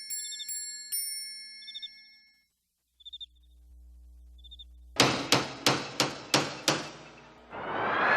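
Cartoon sound effects: a few ringing metallic dings that fade out, then after a short gap a quick run of about eight sharp metallic bangs, about three a second, like hammering on metal. Near the end a rising whine starts under more bangs.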